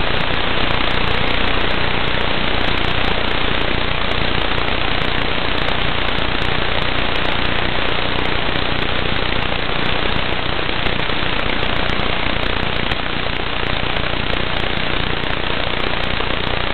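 Loud, even hiss of static on the audio channel of an analog FPV video link, recorded through Fatshark goggles, with a fine crackle in it. The pilot puts the growing noise down to a low goggle battery, though he is not sure.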